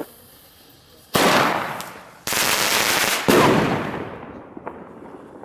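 Fireworks going off in two dense bursts of reports. The first starts about a second in and fades within a second. The second starts about two seconds in, swells again a second later, then dies away.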